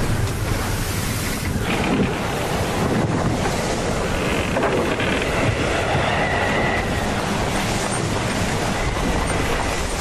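Gale-force storm wind and heavy seas around a sailing ship: a steady loud rush of wind buffeting the microphone, with waves breaking and spray washing over the deck.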